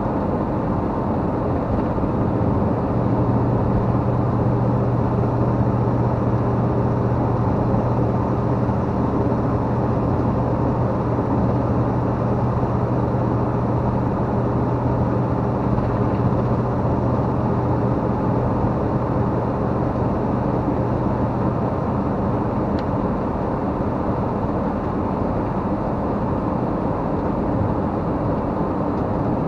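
RV campervan driving at road speed: steady engine and tyre noise, with a low hum through most of the stretch that fades out about two-thirds of the way in.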